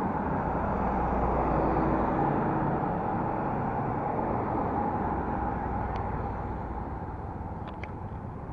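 Road traffic going by: engine and tyre noise from passing vehicles, loudest in the first few seconds and slowly fading.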